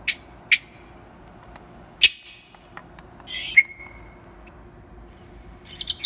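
Recorded bird calls played back by a BK1519B electronic bird caller: a few short, harsh calls at uneven intervals, one about halfway through ending in a drawn-out note, then a run of quick chirps near the end.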